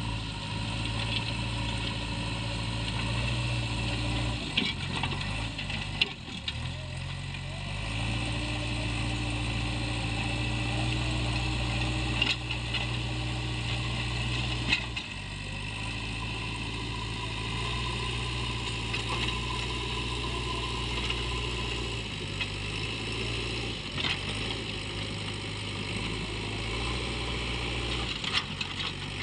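JCB 3DX backhoe loader's diesel engine running steadily under work, its pitch dipping and shifting a few seconds in and again midway as the load changes, with a handful of short, sharp clanks.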